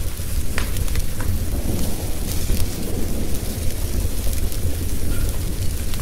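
Steady rain hiss over a continuous low rumble of thunder, with a few sharp crackles from burning wood logs, mostly in the first half.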